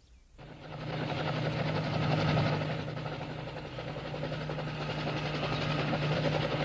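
Cartoon helicopter sound effect: a steady, fast whirring rotor and engine noise that starts about half a second in and grows louder over the next two seconds.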